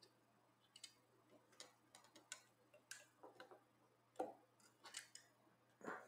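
Faint, scattered small clicks and taps from fingers handling a replacement battery and the opened iPod's case as the battery is fitted into place, with two louder knocks about four and six seconds in.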